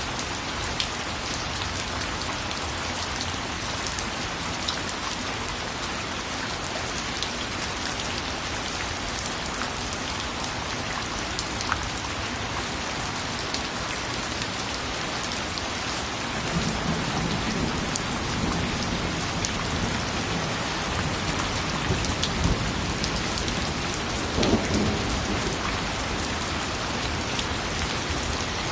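Steady rain falling, with scattered sharper drop ticks. About halfway through, a low roll of thunder comes in, swelling a few seconds later and then fading.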